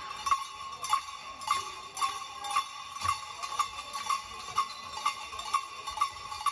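A bell struck in a steady beat, about two strikes a second, each with a short ring.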